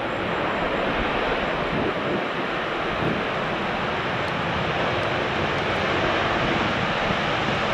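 Jet engines of a Boeing 737 airliner on the runway: a loud, steady rush of engine noise.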